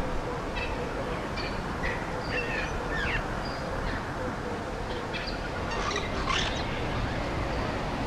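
Bush ambience: a steady background hiss with scattered faint bird chirps and short whistles.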